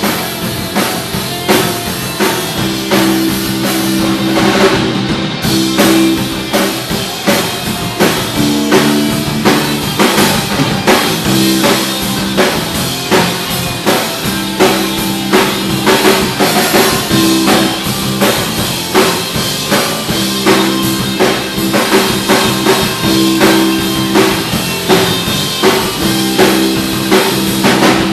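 Live punk rock band playing an instrumental passage without vocals: guitar over a drum kit keeping a steady beat.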